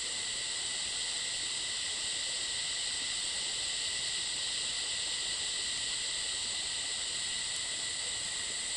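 A steady, unbroken chorus of cicadas: a high-pitched, even buzzing drone.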